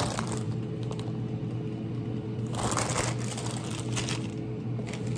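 Plastic salad bag crinkling in short bursts as shredded lettuce is shaken out of it onto a tortilla wrap, over a steady low hum.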